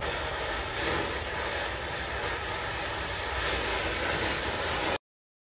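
Oxy-fuel cutting torch blowing a steady hissing rush as it cuts through the steel of the stairway, throwing sparks; the sound stops abruptly about five seconds in.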